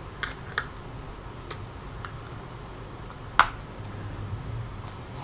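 Light clicks and taps of a partly disassembled tablet being handled, with one sharper click a little past halfway.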